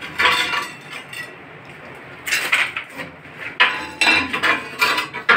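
Ceramic tile pieces clinking and scraping against each other as they are handled, in about four short bouts with a bright ringing edge.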